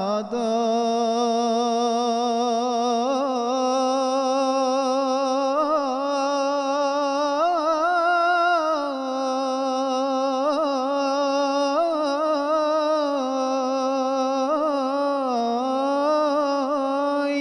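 A man singing a devotional Arabic song solo, with no instruments, into a handheld microphone. He sings the word "a'da'i" (my limbs), then holds one long melismatic run of about fifteen seconds, the pitch weaving in quick ornaments, climbing about halfway through and dipping near the end.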